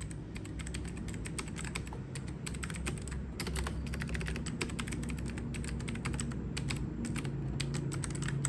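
Typing on an AOC GK-230 mechanical keyboard with blue switches: a rapid, irregular run of sharp clicky keystrokes, with a few brief pauses.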